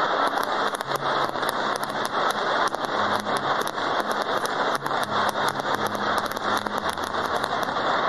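Fireworks finale: many aerial shells bursting at once, their crackling stars giving a dense, continuous crackle of rapid pops.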